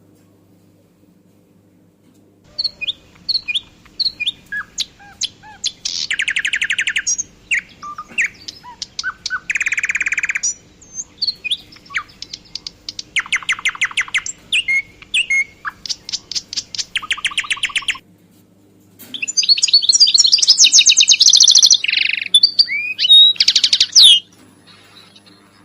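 Fischer's lovebirds chirping and chattering, with repeated bursts of rapid buzzy trills. The calls start a couple of seconds in, pause briefly about two-thirds of the way through, then come back loudest in a dense run of chatter that stops shortly before the end.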